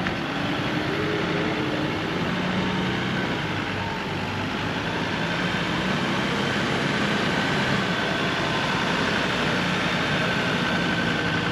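Four-wheel-drive dual-cab ute's engine running as it drives slowly over soft beach sand, with a steady rushing noise behind it.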